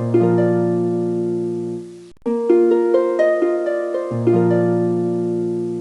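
Outro music: a short plucked harp-like phrase of rising notes settling onto a held low chord, played twice with a brief gap between.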